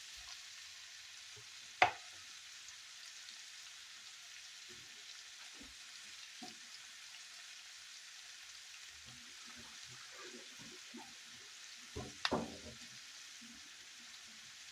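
Bell peppers, onions and mushrooms sizzling steadily as they sauté in a pan. There is a sharp knock about two seconds in, and a short clatter of knocks near the end, typical of stirring against the pan.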